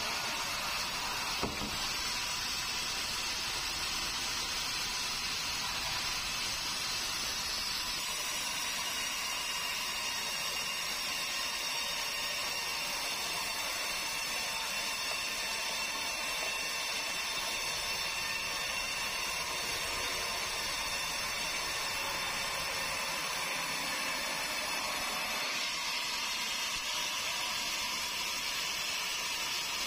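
Sawmill band saw running steadily as it cuts a meranti log on the carriage: a constant high whine over a hiss. A single short knock about a second and a half in.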